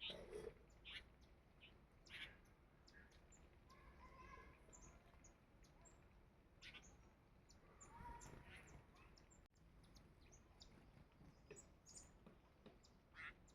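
Faint chirping of small birds: scattered short calls throughout, with a couple of longer whistled notes a few seconds in and again near the middle.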